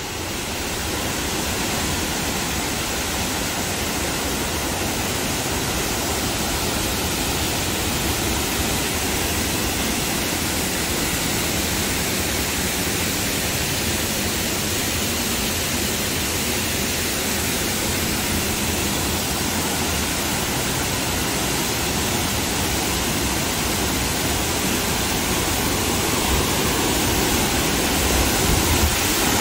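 Steady rushing of a tall mountain waterfall, an even noise that grows a little louder near the end.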